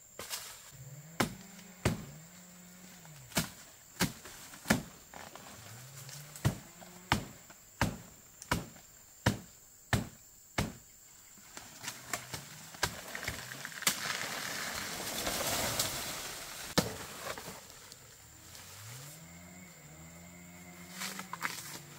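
Sharp chopping strikes, roughly one a second, for about the first half, among short low animal calls. A few seconds of hissing noise swells and fades just after the middle.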